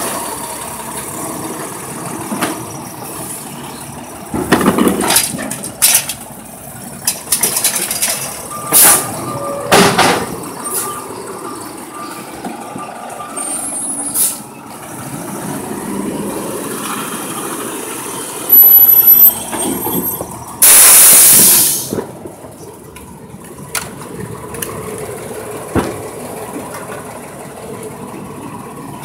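Natural-gas Mack side-loader garbage truck working a stop: its engine runs throughout, with several loud clanks and bangs in the first ten seconds as the automated arm dumps and returns the cart. About two-thirds of the way through, a loud hiss of air brakes lasts a second or so.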